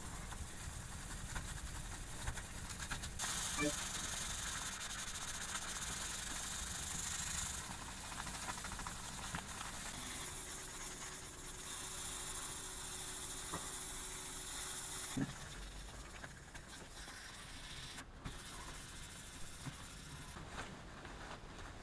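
Waterproof sandpaper, used dry, rubbed by hand over a steel axe head: an even, high rasping hiss that swells for several seconds at a time with the sanding, and a single light knock about halfway through.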